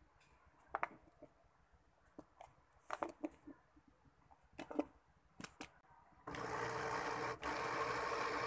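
A few light knocks and clinks of the glass blender jug and lid being handled, then about six seconds in a blender motor switches on and runs steadily, blending cooked rice and egg yolks.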